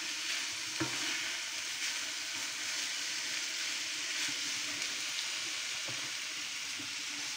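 Sweet yellow zarda rice sizzling steadily in a frying pan on a gas flame, with a metal spoon stirring through it and faint light scrapes against the pan.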